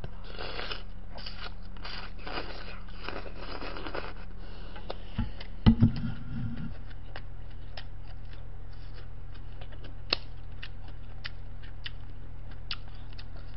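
Slurping noodles and broth from a stainless steel bowl for about four seconds, then the bowl set down on the table with a knock about six seconds in, followed by faint chewing and mouth clicks over a steady low hum.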